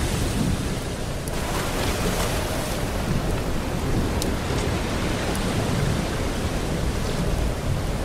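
Steady rushing water noise with a deep rumble underneath and a few faint ticks.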